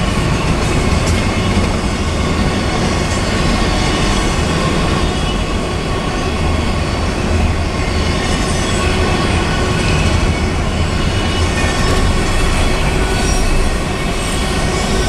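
Double-stack intermodal container cars of a freight train rolling past at speed: a steady, loud noise of steel wheels running on the rails.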